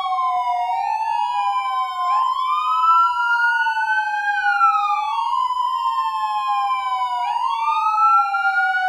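Police car sirens wailing: two siren tones, each slowly rising and falling in pitch over a few seconds, sounding together out of step with each other.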